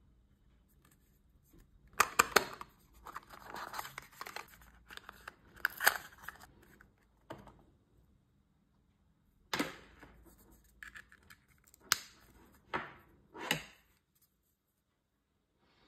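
Unboxing handling noise from a small wireless microphone kit: packaging and a cable rustling in the first half, and several sharp clicks and knocks of a small plastic charging case and cable plugs being handled.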